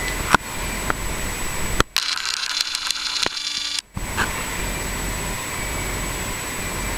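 Steady fan-like room hiss with a few handling clicks. About two seconds in, a camcorder's zoom motor whirs for about two seconds as the camera zooms out.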